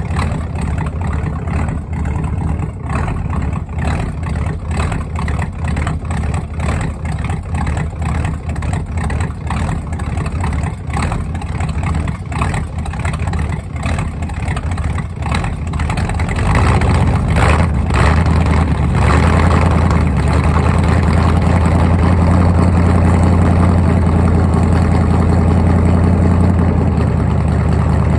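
Ford 302 small-block V8 idling cold through its exhaust with an uneven, pulsing lope. About sixteen seconds in the engine speeds up and runs louder and steadier, warming up.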